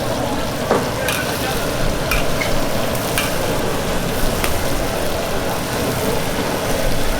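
Sesame oil chicken frying in a wok, a steady sizzle as it is stirred, with a few sharp clicks through it.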